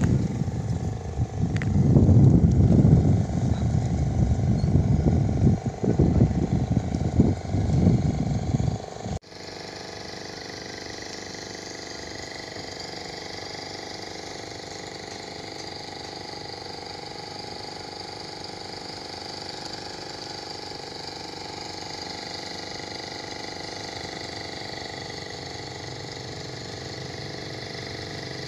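Wind buffeting the microphone in loud, irregular gusts. About nine seconds in it cuts off suddenly to a quieter, steady outdoor hiss of wind and choppy water.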